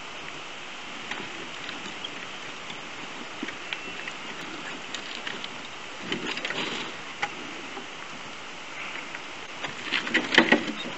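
Wheels of a Tramper battery-powered off-road mobility scooter crunching and crackling over loose stones and rock slabs, over a steady background hiss. The crunching grows louder about six seconds in and again near the end as the scooter draws close.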